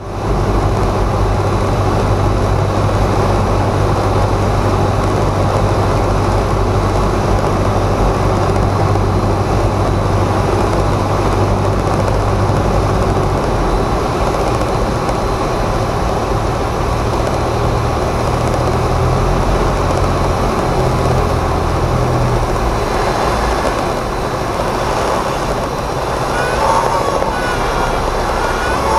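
Cessna 172's four-cylinder piston engine and propeller heard from inside the cockpit, a loud steady drone on final approach whose note changes about halfway through. A few brief high chirps come near the end as the plane reaches the runway.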